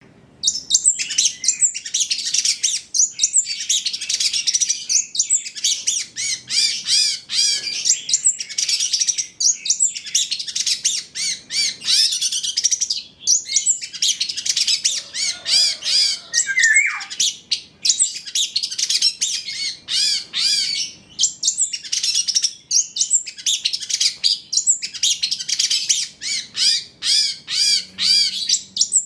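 A young long-tailed shrike (cendet trotol) singing a fast, nearly unbroken chatter of high, rapidly repeated notes, with a couple of short breaks.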